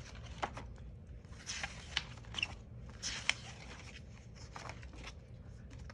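Paper rustling with light clicks and scrapes as journal pages and paper inserts are handled and turned.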